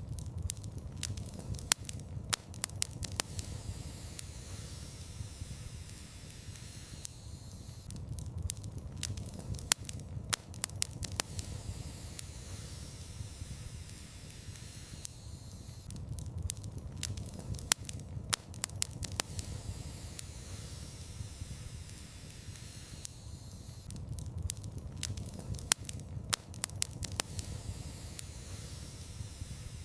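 Wood fire in a fireplace crackling: clusters of sharp pops and snaps over a steady low rumble of the flames, the bursts of pops coming about every eight seconds.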